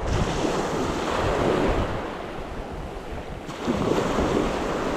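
Sea surf washing onto the beach with wind buffeting the microphone; the wash is strongest at the start, eases, and surges again about three and a half seconds in.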